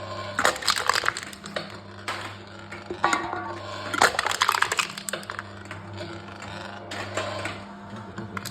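Aluminium cans being crushed in a machine: three bursts of crackling, crunching metal over a steady low hum.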